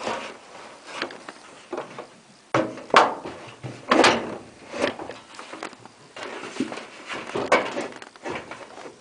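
Irregular knocks, clunks and scrapes from parts of an opened-up tumble dryer being handled and moved, with the loudest clunks about three and four seconds in.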